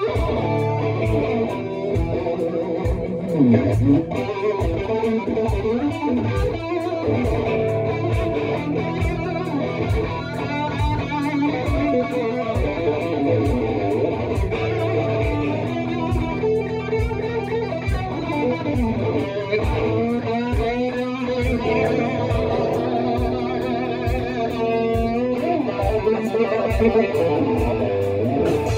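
Electric guitar playing over a steady rhythmic pulse.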